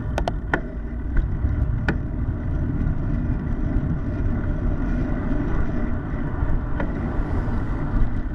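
Wind rushing over a bicycle-mounted camera's microphone while riding, over a steady low road rumble. A few sharp clicks come in the first two seconds and one more near the end.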